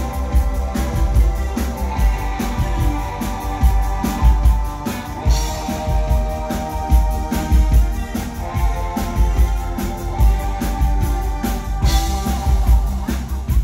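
Live band playing an amplified synth-pop song: electric guitar, synth keyboards and drum kit over a steady beat.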